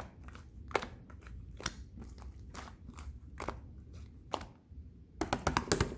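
Slime being pressed and poked, giving crisp clicking pops about once a second. Near the end comes a quick run of crackles.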